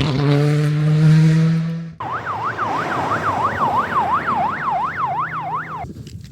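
A car engine held at high, steady revs, then, after an abrupt cut about two seconds in, a vehicle siren sweeping rapidly up and down about three times a second over a running engine, stopping shortly before the end.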